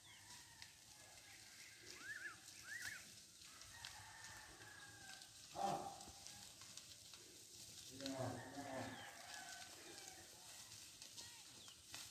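Faint rural ambience with distant birds calling and a rooster crowing. The loudest call comes a little before the middle, and another runs for about a second soon after.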